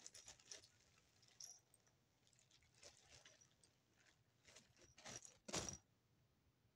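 Near silence with faint scattered clicks and rustling, and a louder brief rustle about five and a half seconds in.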